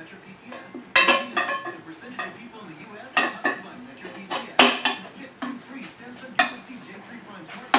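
Sharp metal clanks and clinks at irregular intervals, eight or so, from a Pittsburgh portable manual tire changer and its steel tire bar as a tire is worked onto a wheel.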